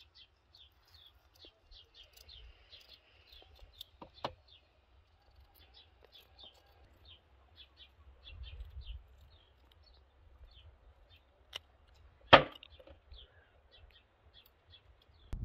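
A small bird repeating a short high chirp about three times a second, over faint low rumble. A sharp knock about twelve seconds in is the loudest sound, with a smaller click about four seconds in.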